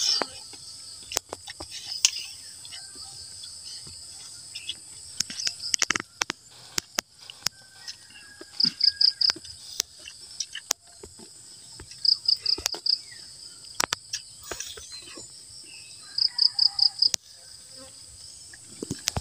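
Steady high-pitched insect chorus of crickets, with close-up eating sounds: sharp clicks and smacks of chewing and of food picked up by hand. Three times, a short run of quick chirps stands out.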